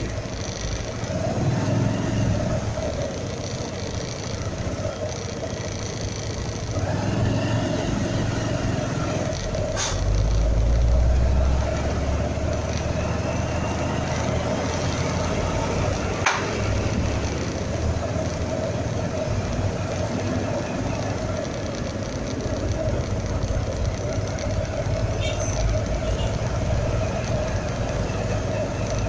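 Slow street traffic heard from a motorcycle: engines running at low speed, with a deeper engine rumble swelling for a couple of seconds about ten seconds in. Two sharp clicks, one about ten seconds in and one about sixteen seconds in.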